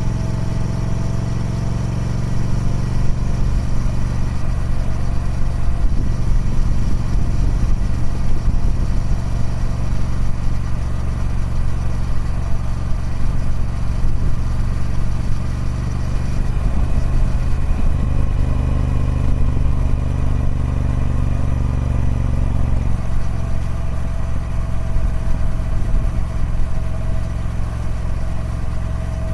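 Triumph Speed Twin 1200's 1200cc parallel-twin engine running through its stock exhaust, a continuous low drone. It grows heavier and rougher a few seconds in and settles back to a steadier note about three quarters of the way through.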